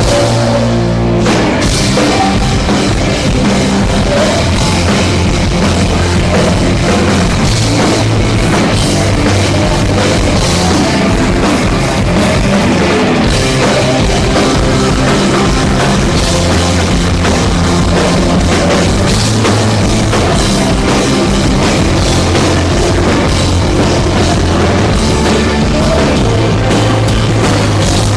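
A rock band playing a song live, loud and steady, with a drum kit driving the beat.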